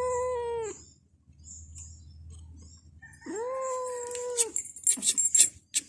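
Dog howling: two long, drawn-out calls about three seconds apart. A few sharp clicks and rustles follow near the end.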